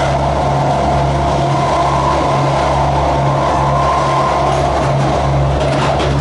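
Diesel multiple unit running at line speed, heard from the gangway between coaches: a steady drone of the underfloor diesel engines and wheels on the rails, with a low throb pulsing about twice a second and a steady whine above it.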